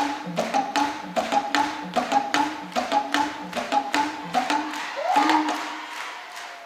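Talking drum played in a quick rhythm of sharp, pitched strikes, several to the second, with some notes bent in pitch. About five seconds in, the phrase ends on a note that bends upward, then rings and fades away.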